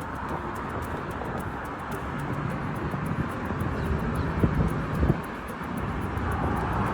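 Steady outdoor rush of a vehicle running, with wind on the microphone and a couple of brief knocks about four and a half and five seconds in.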